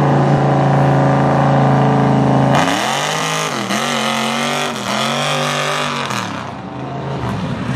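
Mega mud truck's engine running steadily, then revving up and down in repeated surges as the truck churns through mud, easing off near the end.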